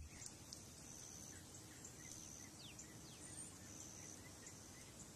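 Faint natural ambience: an insect, cricket-like, chirping in short high trills that repeat every second or so, with a few brief bird chirps.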